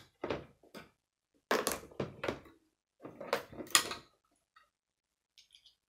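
Plastic Lego bricks being handled and pressed together on a model: three short spells of clattering and knocking, then a few faint clicks near the end.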